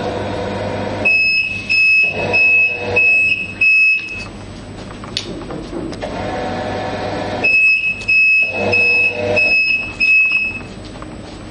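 Needle detector's alarm beeping in two runs of about five quick high beeps each, signalling that its sensor has picked up the metal needle in the test piece passing through. Under the beeps the conveyor belt runs with a steady low hum.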